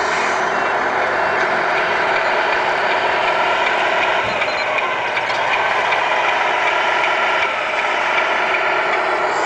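Tamiya 1/14 RC tractor truck driving on asphalt, its electric motor and gearbox giving a steady, gear-like whir.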